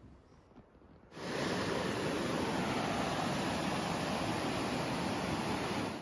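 About a second of quiet forest background, then a loud, steady, even rushing noise starts suddenly and holds without change until it cuts off abruptly at the end.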